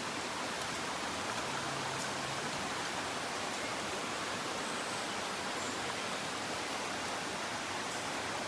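Steady, even rushing background noise with no rhythm or pitch, with a faint click about two seconds in.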